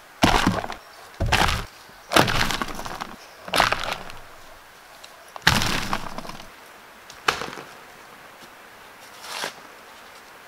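Loads of loose soil dumped onto a roofing sheet, landing about seven times in sudden crunching, pattering bursts that trail off quickly.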